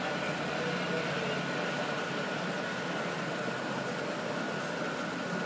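Steady hum of an idling engine, with a thin constant high whine over it and no change in pitch or level.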